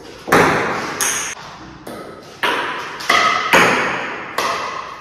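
Table-tennis ball clicking off the bats and bouncing on the table in a rally, about seven hits at uneven spacing, each echoing briefly in the room.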